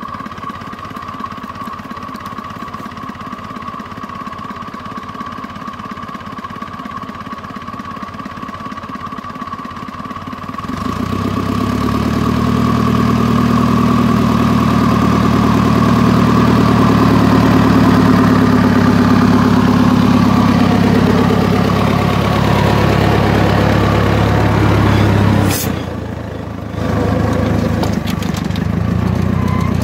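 Homemade compact tractor's engine running steadily as it drives across tilled soil. It gets clearly louder about ten seconds in as the tractor comes closer pulling its harrow, dips briefly near the end, and then comes back as the harrow passes overhead.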